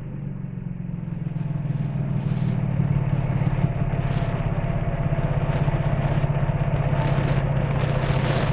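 Nissan Frontier's 4.0-litre V6 idling through a Magnaflow single-in, dual-out muffler and dual tips, a steady low exhaust note.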